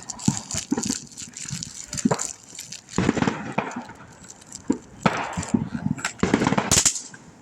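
Fireworks going off: a string of sharp cracks and pops, with dense crackling bursts about three seconds in and again from about five seconds, loudest near the end.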